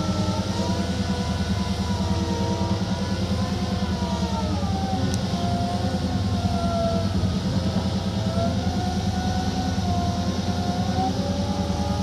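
Tata Hitachi EX210LC excavator's diesel engine running steadily under working load, with a whine that slowly rises and falls as the boom and bucket move.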